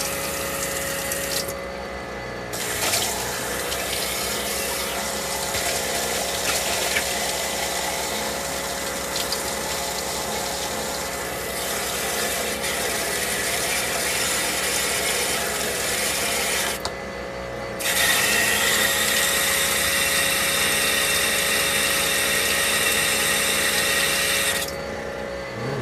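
Water rushing from a kitchen faucet into a sink, with the RV's electric water pump running steadily beneath it. The rush drops out briefly three times as the faucet handles are worked.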